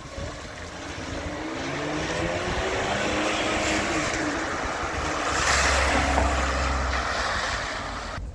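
A car driving past with its engine running. The sound swells as it approaches, is loudest a little past the middle, with a deep rumble, then fades as it moves away.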